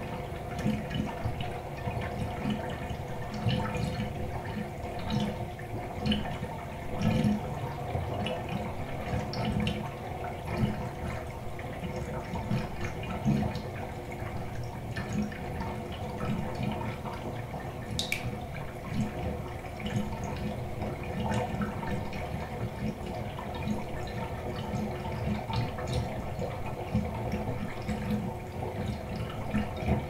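Water draining out of a fiberglass bathtub: a steady gurgling flow with irregular low glugs. A single sharp tick about eighteen seconds in.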